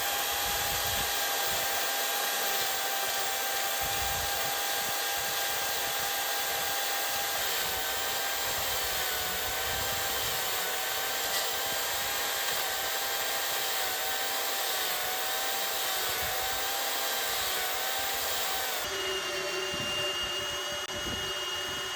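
A power tool running steadily while shaving wood off the top of a log, with a constant whine. About 19 seconds in, the pitch changes abruptly to a different steady tone.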